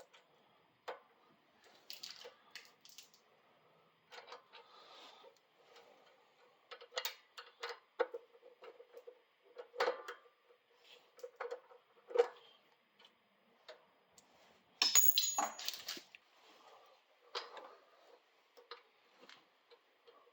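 Scattered light metallic clicks and taps of a brake cable and small parts being handled and fed through a mini bike's brake hardware, with a louder scraping clatter about a second long roughly three-quarters of the way through.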